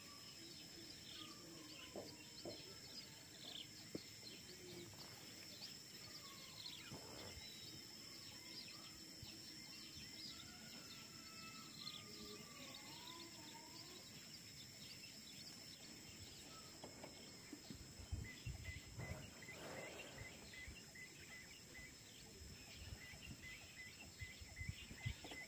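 Faint rural ambience: birds calling with short gliding whistles over a steady high insect drone, with a faint repeating high note later on and a few low rustles about two-thirds through.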